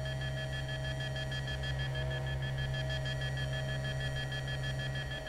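Steady electronic hum of sci-fi laboratory machinery: a low drone with a few thin high tones held over it, some faintly pulsing, stopping abruptly at the end.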